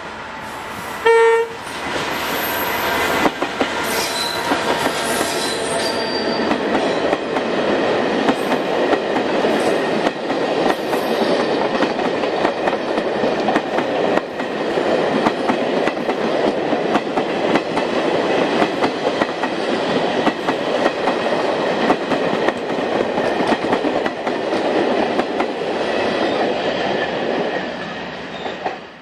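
Irish Rail diesel locomotive gives a short horn blast about a second in, then it and a long train of passenger carriages pass close by, the wheels clattering over the rail joints.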